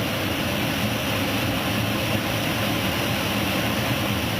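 Soltec DeltaMax wave solder machine running, its preheat convection blowers giving a steady, even rush of air.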